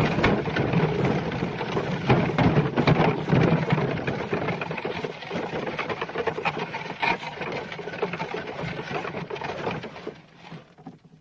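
Horse-drawn cart: hoof clops and rattling, rumbling cart wheels that grow fainter and fade out near the end.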